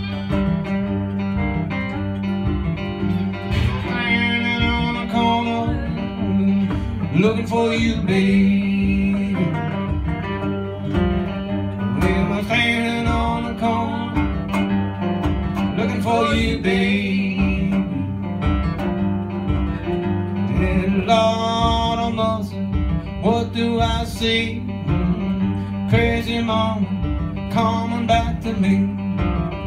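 Live acoustic blues band playing an instrumental passage: a resonator guitar and a second guitar over a steady low rhythm, with bending high guitar lines coming in every few seconds.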